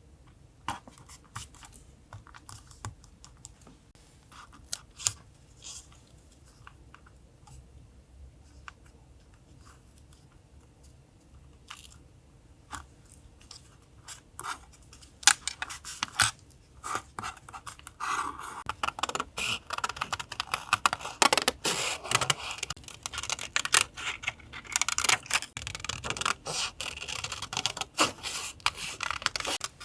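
Paper being handled for a collage journal: scattered light taps and clicks, then from about eighteen seconds in a long stretch of dense, scratchy rustling and scraping of paper.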